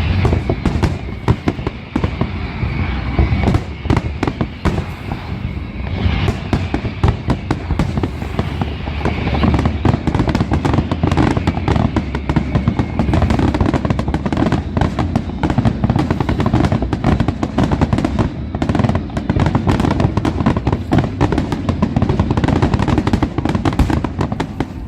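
Aerial fireworks display: a dense, continuous barrage of shell bursts and crackling reports with no let-up.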